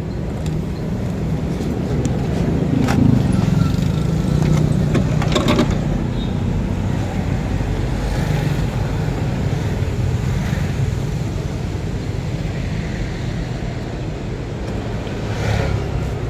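A car engine running steadily with a low hum, with a few short clicks and knocks.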